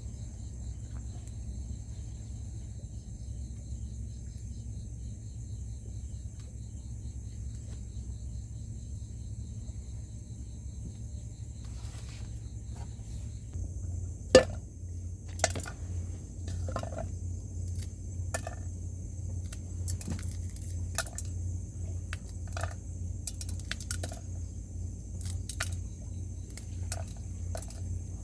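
Steady drone of forest insects, with a pulsing insect chirp that stops about halfway through. From then on, irregular clicks and knocks of things being handled, the loudest a single sharp knock about halfway in.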